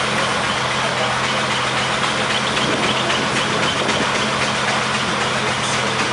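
Vintage bus engine running steadily under load as the bus crawls uphill in slow traffic, a constant low hum with a rushing noise over it, heard from the open top deck.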